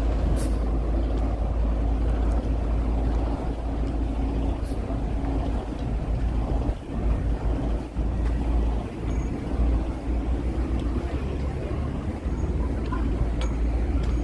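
City street ambience: a steady low rumble of passing road traffic with some wind on the microphone, and a few faint sharp clicks.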